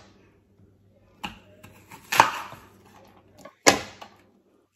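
Kitchen knife chopping apples on a cutting board: three sharp knocks of the blade through the fruit onto the board, the loudest about two seconds in, with fainter taps between them.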